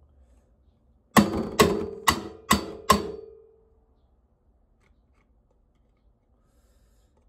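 Five sharp knocks about half a second apart, each followed by a short ringing tone that fades about a second after the last knock.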